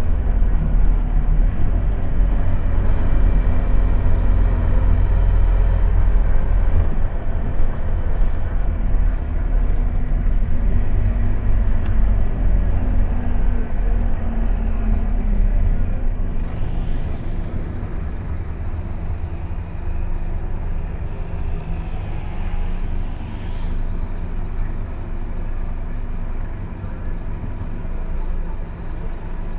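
Scania OmniLink bus's diesel engine and road noise heard from inside the passenger saloon on the move: a heavy low rumble that eases off about halfway through.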